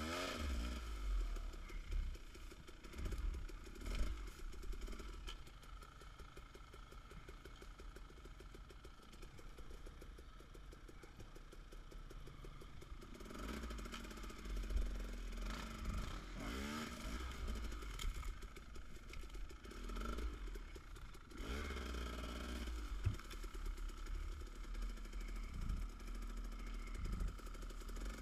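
Dirt bike engine running at low speed on a rough woodland trail, the revs rising and falling as the throttle is worked, with knocks and clatter from the bike jolting over the ground. It runs quieter for a while in the middle, and there are sharp knocks about four seconds in and near the end.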